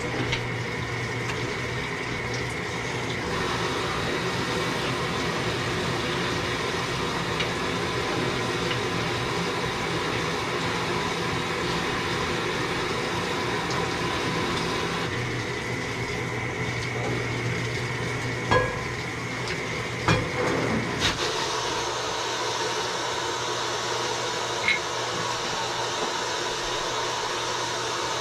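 Samsung washing machine running its rinse stage: a steady motor hum with water running in. A few sharp clicks come about two thirds of the way through, and the hum changes after them. The owner complains that this rinse fill is too little water.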